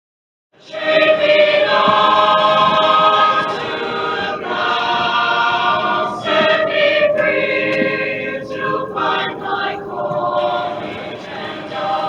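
Choral music: a choir singing held chords in several voices, starting abruptly about half a second in out of dead silence.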